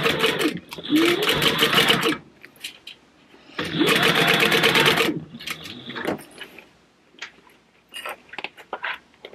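Industrial sewing machine stitching through a thick stack of purse layers in three short runs, each one speeding up and slowing down with the rapid ticking of the needle strokes. A few light clicks come near the end.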